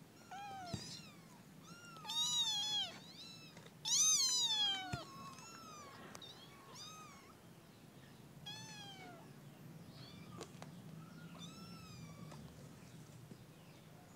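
Young kittens mewing over and over, short high-pitched calls that fall in pitch, loudest about two and four seconds in.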